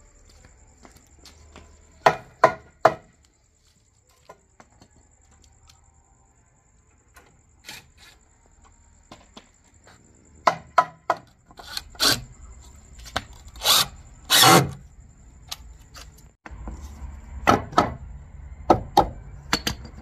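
Hammer striking wooden 2x4 framing: three quick blows about two seconds in, then scattered knocks and taps on the lumber later on, with a longer scraping burst about fourteen seconds in.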